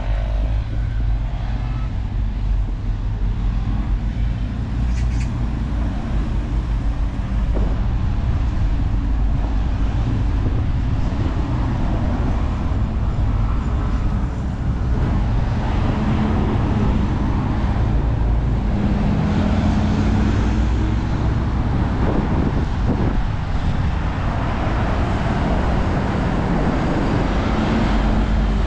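Busy city road traffic: cars and other vehicles running and driving past in a steady rumble, with engine hum swelling as vehicles pass close in the second half.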